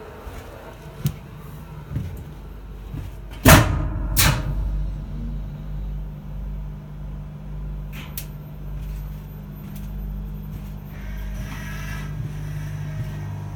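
A door shutting with two loud bangs about three and a half seconds in, then the steady hum and low rumble of an electric locomotive's machine-room equipment running, with a faint higher whine joining near the end.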